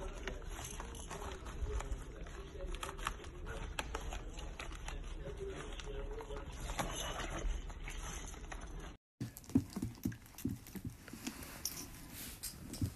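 Raccoon tearing and pawing at a plastic snack packet, with a run of crinkles and clicks. About nine seconds in the sound cuts off and gives way to irregular knocks and thumps.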